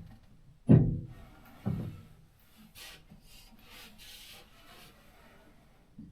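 Two knocks about a second apart, the first the louder, then a few seconds of light scraping and rubbing as a wire shelf is worked into place on the wall.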